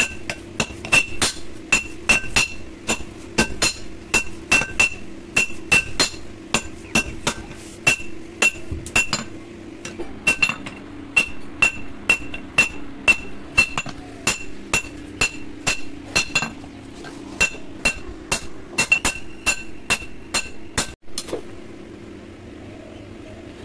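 Hand hammer forging a red-hot steel blade on a railway-rail anvil: about two blows a second, each with a bright metallic ring. The hammering stops about 21 seconds in.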